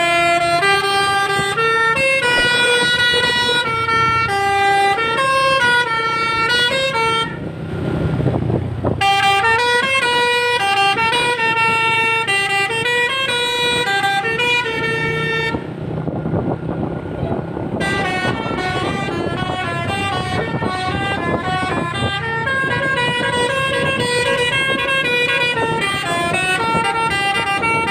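Basuri telolet horn on an NPM bus playing a tune of stepping notes over and over, with the bus's engine and road noise underneath. About seven seconds in, the tune breaks off briefly under a low rumble, then starts again.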